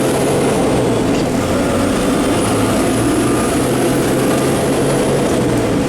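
A public bus's diesel engine running steadily under way, with dense road and running noise. A faint high whine rises and falls twice.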